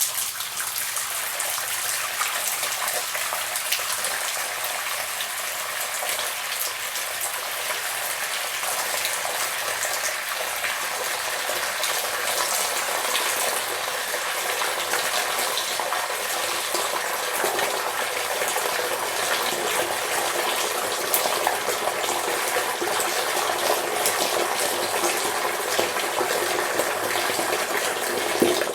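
Tap water running in a steady, even stream and splashing.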